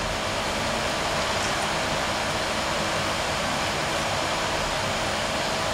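Steady, even rushing hiss of a wall-mounted air conditioner running.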